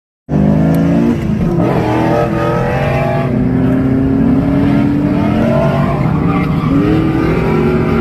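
Car engine revving hard at high rpm, bouncing off its rev limiter, with the pitch rising and falling as the car drifts, while the spinning rear tyres squeal.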